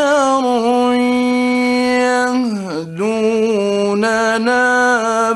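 A male Quran reciter's voice in melodic mujawwad recitation, holding long drawn-out notes with small ornaments. The pitch dips and falls briefly about two and a half seconds in, then settles lower and rises again.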